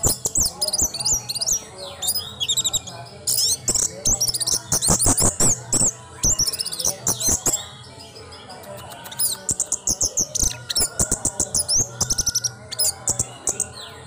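Orange-headed thrush singing a rapid, varied song of high chirps and trills in dense phrases, with a short pause about halfway through.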